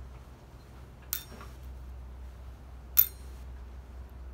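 Two metallic clinks, about two seconds apart, the second louder, as small pieces of cartridge brass drop into the metal weighing pan of a digital pocket scale.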